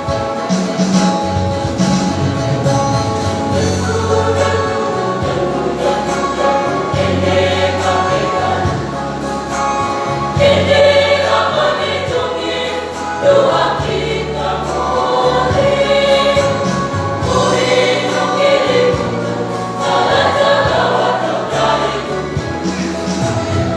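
School choir singing a song in several parts, holding chords that change every second or so over steady low notes.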